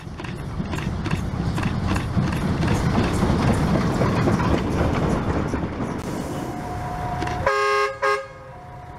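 Steam locomotive running past close by, its rough running noise building up as it comes. Its whistle sounds near the end: a steady tone, then a short louder blast of several tones together, then one tone held.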